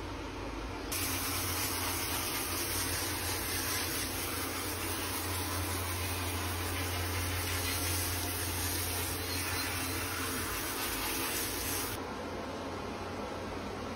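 Steady hiss of water running from a handheld tub sprayer during a dog's bath. It gets louder and brighter about a second in and drops back near the end.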